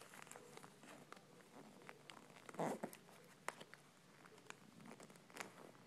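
Faint crinkling and rustling of origami paper being folded and creased by hand, with scattered small ticks and one brief louder sound about two and a half seconds in.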